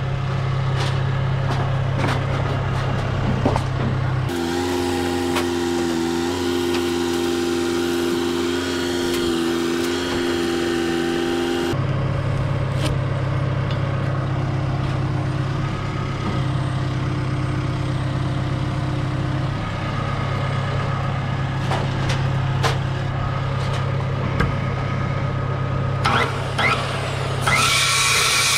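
Boom lift's engine running steadily, its note rising to a higher, steadier pitch for about seven seconds from about four seconds in. Near the end a large Skilsaw circular saw starts cutting into wood.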